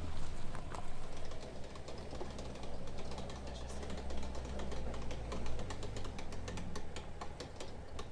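An off-road 4x4's engine running low and steady, with many quick, irregular clicks and ticks over it that come thicker in the second half.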